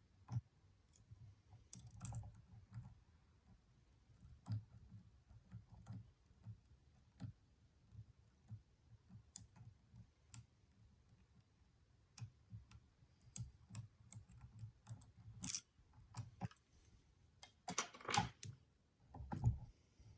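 Lock pick and tension wrench working inside a Stanley padlock's keyway: faint, irregular small clicks and scrapes, with a short rattling scrape near the end.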